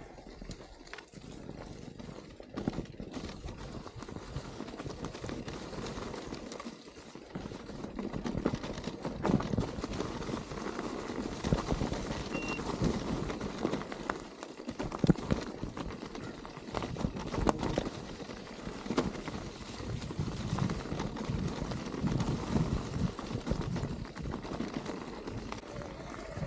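Mountain bike rolling over a rough trail: tyres crunching over stones, with irregular knocks and rattles.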